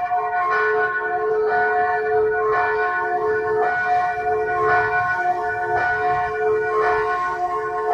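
Church bells of Phu Long church pealing, with a fresh stroke about once a second. Each stroke rings on into the next, so the tones overlap.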